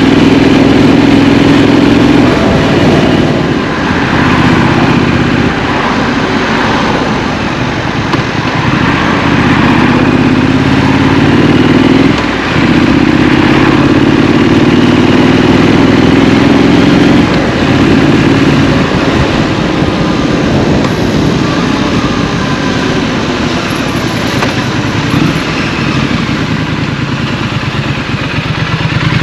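Triumph Street Scrambler parallel-twin engine pulling through the gears on the road. Its pitch rises under throttle, dips sharply twice at gear changes about twelve and seventeen seconds in, then eases to a lower, steadier run.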